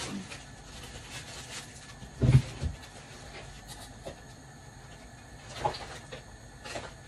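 Scattered kitchen handling knocks and bumps, the loudest a dull thud a little over two seconds in with a second, lighter knock just after, and another bump near six seconds.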